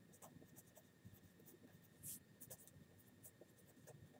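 Felt-tip marker writing on paper: faint, short scratching strokes, one a little louder about two seconds in.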